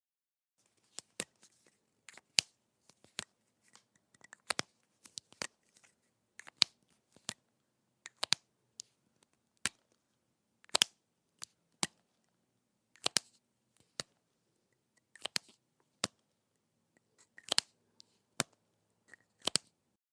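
Plastic marker cap being snapped on and pulled off again and again: sharp clicks, often in quick pairs or little clusters, about one to two a second.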